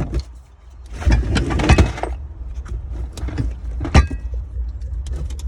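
Keys being handled: a run of jangling and clicking about a second in, then one sharp click near four seconds, over a steady low rumble.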